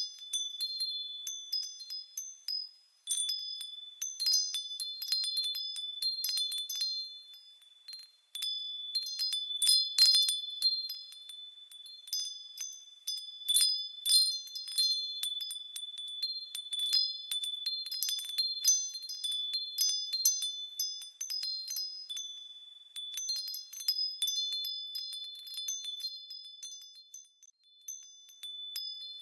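Wind chimes tinkling continuously: many quick strikes of several high, bright ringing tones overlapping. They thin out briefly about three and eight seconds in.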